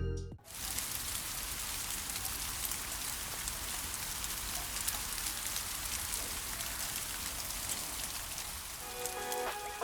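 Steady rain falling: an even hiss with scattered small drop ticks. Soft background music comes back in near the end.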